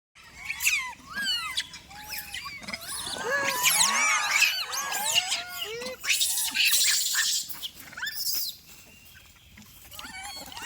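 Monkeys squeaking and squealing: many short, high calls that rise and fall in pitch and overlap one another. They die down about eight and a half seconds in, then start again near the end.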